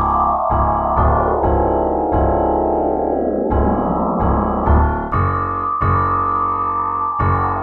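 Background piano music: notes struck about twice a second, with a run of notes sweeping down and back up in the middle.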